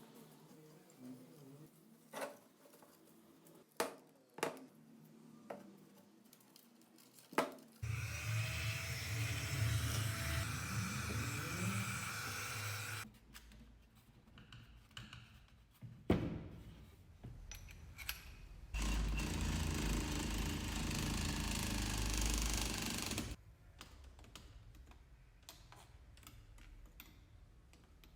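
Scattered clicks and knocks of tools being handled, then a small power tool running in two bursts of about five seconds each, with a sharp knock between them.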